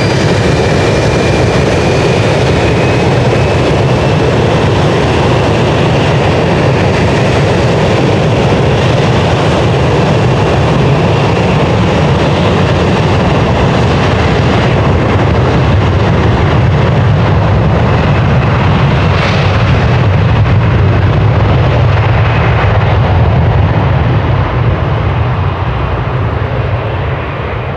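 Fokker 70's twin Rolls-Royce Tay turbofans at takeoff power, a loud steady jet-blast rumble with a high turbine whine that climbs slightly in pitch in the first few seconds. The sound fades over the last few seconds as the jet accelerates away down the runway.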